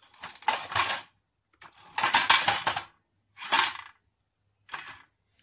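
A 300 rpm geared DC motor running a test lifter arm in four short bursts of different lengths, its gearbox whirring and rattling as it strains to raise a robot of about the same weight.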